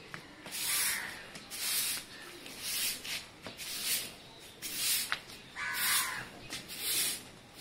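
Short handheld grass broom sweeping a concrete yard: a rhythmic series of scratchy swishes, about one stroke a second.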